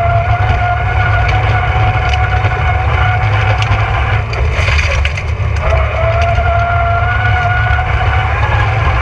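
Rally car engine running hard at high, fairly steady revs. About four to five seconds in, the note drops briefly under a rush of noise, then picks up again.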